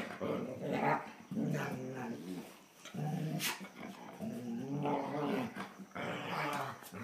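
Two German Shorthaired Pointers play-growling as they wrestle, a series of about five rumbling growls a second or so long each, with a brief sharp sound about halfway through.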